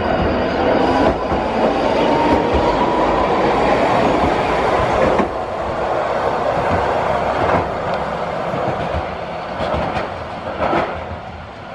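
Hankai Tramway 1001-series low-floor tram running by on its track: a steady rumble of wheels on rail with a faint rising whine in the first few seconds and several sharp clicks over rail joints later, fading off near the end as it moves away.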